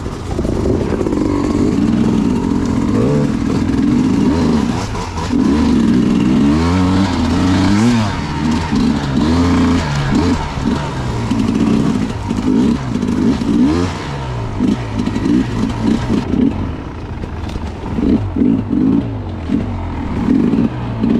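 Enduro dirt bike engine revving up and down over and over as the throttle is opened and shut, heard from on the bike.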